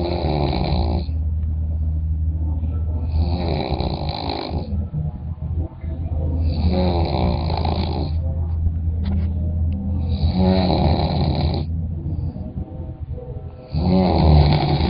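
Snoring: five rattling snores, evenly spaced about three and a half seconds apart, each lasting about a second and a half.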